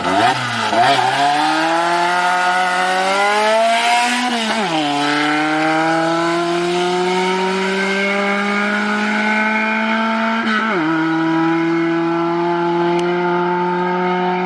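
A car engine accelerating up through the gears. Its pitch climbs, then drops sharply at an upshift about four and a half seconds in and again at a second upshift about eleven seconds in, then holds nearly steady.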